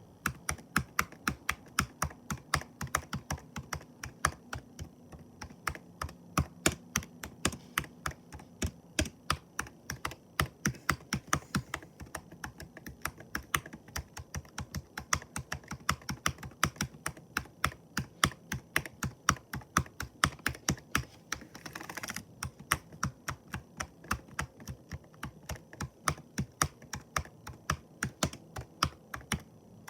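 Continuous typing on a computer keyboard: a fast, uneven stream of sharp key clicks, several keystrokes a second, without pause.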